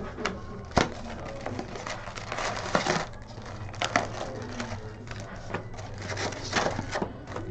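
2019-20 Prizm basketball retail card pack wrappers being torn open and crumpled, a run of rustling with a few sharp snaps, the loudest about a second in.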